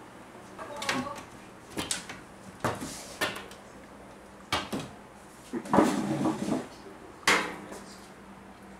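A string of irregular sharp knocks and taps, about eight over several seconds, with the busiest, loudest cluster around six seconds in.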